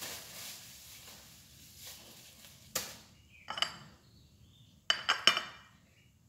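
Dishes and metal utensils clinking and knocking together: a knock about three seconds in, a clink with a short ring just after, then a quick run of four or five clinks about five seconds in.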